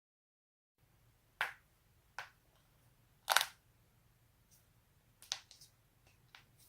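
Spinal joints being cracked: a handful of sharp, separate pops at irregular intervals, the loudest about three seconds in.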